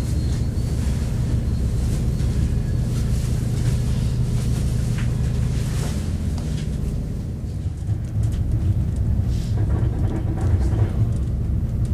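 Steady low rumble of a Bombardier Talent diesel railcar heard from inside the cabin while under way, with the noise of a second train passing close alongside in the first half.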